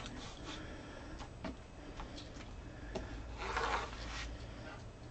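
Faint rustle and scrape of poly deco mesh being cut with a rotary cutter on a cutting mat and handled, with a few light clicks and a longer scrape about three and a half seconds in.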